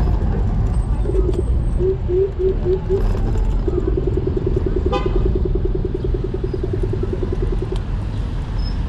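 Low rumble of street traffic and wind during an electric scooter ride, with an electronic beeper sounding over it: a few separate beeps, then rapid beeping about ten a second for some four seconds before it stops.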